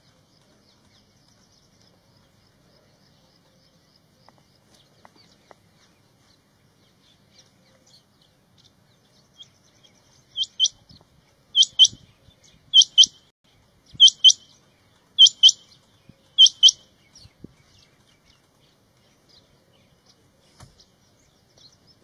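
Male rain quail calling: six sharp, high double notes, one about every second, starting about halfway through after several quiet seconds.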